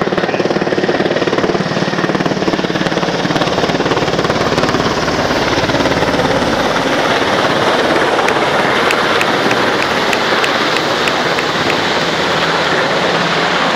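HM Coastguard search-and-rescue helicopter flying low overhead, its rotors and turbine engines loud and steady.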